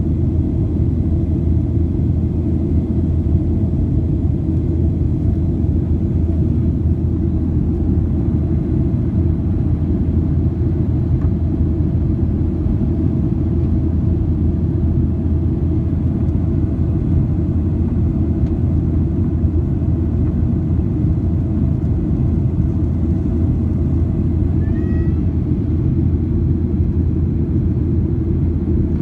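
Steady low cabin roar of a Boeing 737-800 in flight: the CFM56 turbofan engines and airflow heard from inside the passenger cabin, even and unchanging.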